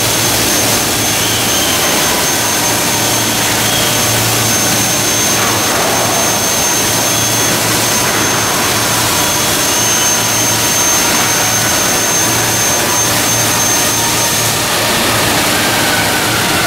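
Loud, steady factory-floor machinery noise with a low hum underneath and a thin high whine that stops about three-quarters of the way through.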